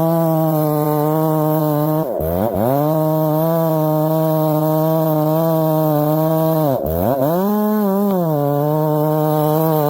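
Chainsaw running at high revs with a steady tone. Twice, about two seconds in and again near seven seconds, the revs drop sharply and come straight back up.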